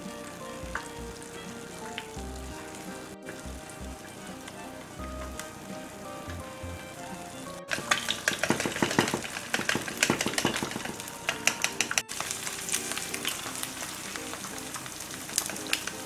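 Eggs frying in a nonstick pan, sizzling and crackling. The spattering turns much louder and denser about halfway through, with many sharp pops, and stays loud.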